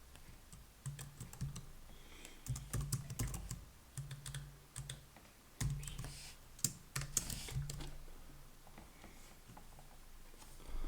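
Typing on a computer keyboard: irregular keystroke clicks, with a low hum that comes and goes.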